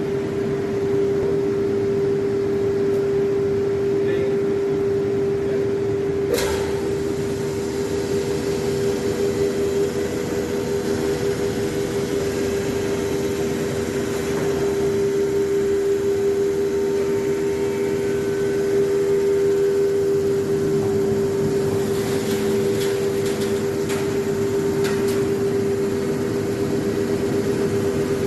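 CNC nesting router running with a steady hum, with a sharp click about six seconds in and a few more clicks near the end.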